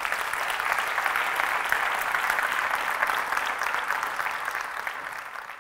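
Audience applauding: many hands clapping together in a steady wash that fades away near the end.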